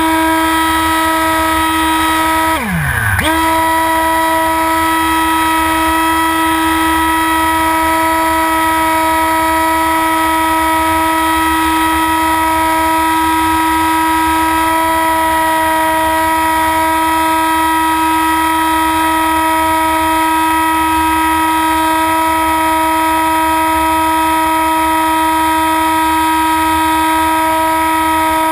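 Motor and propeller of a small RC model airplane heard from the plane's own camera: a steady high whine under power, with a sharp dip in pitch and a quick return about three seconds in, as the throttle is cut and opened again. Low wind rumble runs underneath.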